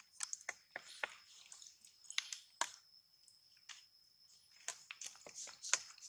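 Irregular dry clicks and crackles, like leaf litter being stirred, over a faint steady high-pitched tone.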